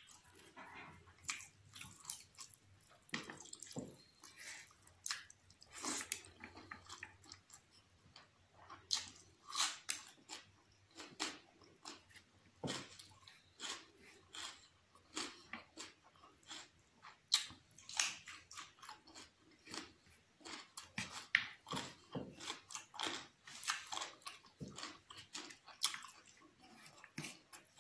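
Close-up chewing with wet mouth smacks and clicks as rice and chicken curry are eaten by hand. Fingers squish the rice and curry on the plate between bites.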